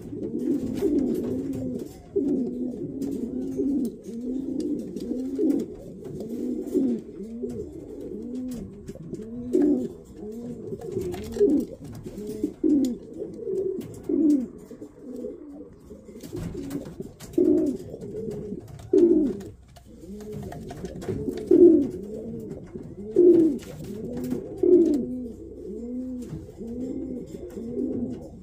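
Racing pigeons cooing over and over, a continuous run of low, rolling coos that overlap and repeat about once a second, with a few faint clicks.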